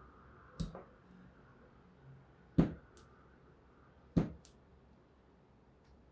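Three sharp taps or knocks of small hard objects on a work surface, about a second and a half apart, the second and third each followed by a fainter click.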